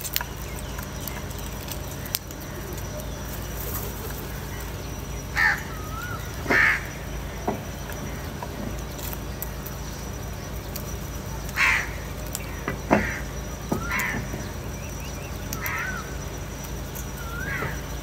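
House crows cawing, about six short harsh caws spread out with gaps between them. Brief whistled notes and a few sharp clicks come in between the caws.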